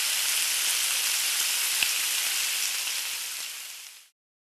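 Sizzling of food frying in hot oil: a steady hiss with one small crackle near the middle, fading over the last second and stopping about four seconds in.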